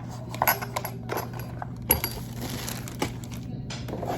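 Packaging being handled as a Funko Pop box is brought out: scattered light taps and clicks, with a stretch of rustling about two seconds in, over a steady low hum.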